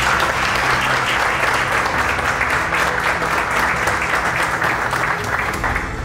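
A small group of people applauding, the clapping stopping just before the end, with faint background music underneath.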